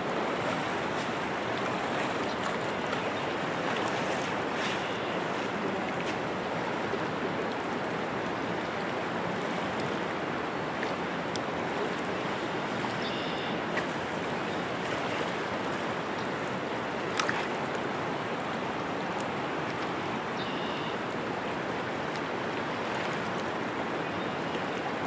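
Fast river current rushing steadily, an unbroken wash of water noise, with one sharp click about seventeen seconds in.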